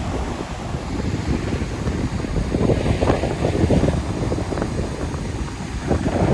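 Sea waves washing in, with wind buffeting the microphone; the surf swells about midway and again near the end.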